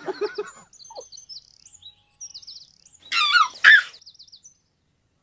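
Small birds chirping and trilling in quick high notes, with a louder, sweeping call about three seconds in; the birdsong stops about a second before the end.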